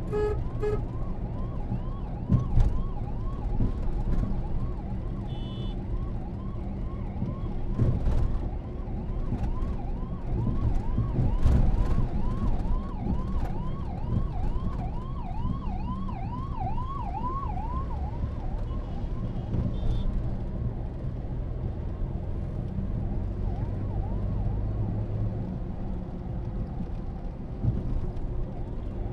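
Ambulance siren yelping in quick rising sweeps, about two a second, growing louder and then fading out after about eighteen seconds. It is heard from inside a car over a steady rumble of engine and road noise, with a short horn beep about five seconds in.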